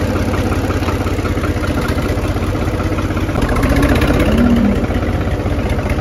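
New Holland tractor's diesel engine idling with a steady, fast chug, a little louder for about a second in the middle.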